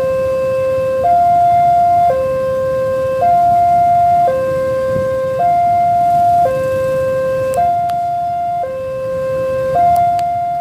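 Railway level-crossing warning alarm sounding an electronic two-tone signal, alternating between a lower and a higher note about once a second. It signals that a train is approaching the crossing.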